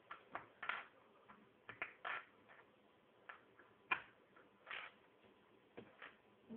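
Lego plastic parts handled and pressed together: irregular light clicks and a few short rattles, about one every half second.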